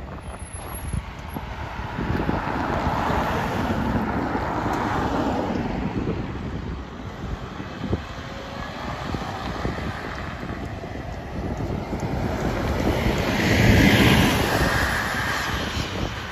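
City bus driving past, its engine and tyres building to a peak near the end as it passes closest, with wind buffeting the microphone throughout.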